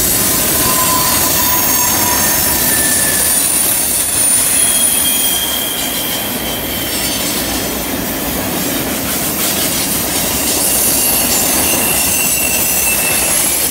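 Freight cars of a passing train rolling by on a curve: steel wheels squealing against the rail in several thin, high-pitched tones, each lasting a second or two, over a steady rolling rumble.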